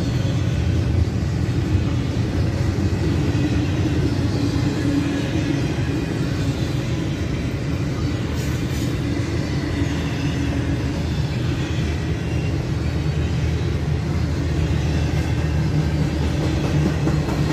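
Double-stack intermodal freight train's well cars rolling past, a steady noise of steel wheels running on the rails.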